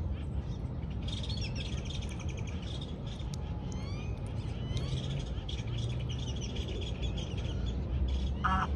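Small birds chirping and twittering busily, with a few quick rising whistles in the middle, over a low steady rumble. Near the end there is one short nasal call from a waterfowl.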